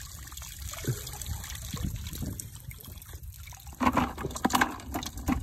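Water trickling and dribbling off a woven bamboo fish trap as it is lifted out of shallow paddy water, with louder splashing near the end.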